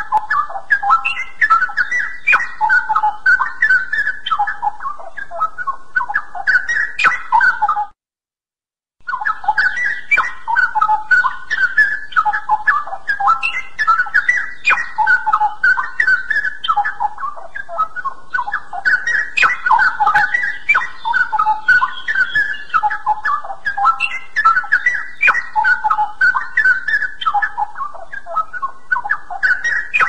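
Straw-headed bulbul (cucak rawa) singing a continuous, loud, rich song of quick fluty, bubbling whistled phrases, with a silent break of about a second some eight seconds in.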